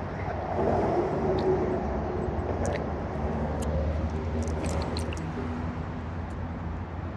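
Steady rumble of road traffic on the elevated roadway overhead, with a few faint clicks in the second half.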